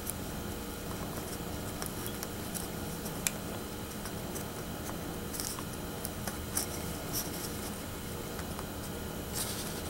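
Faint rustling and scraping of fabric being pushed and tucked into an ornament with a needle tool, with a few brief scratches and one sharp click about three seconds in, over a steady low hum.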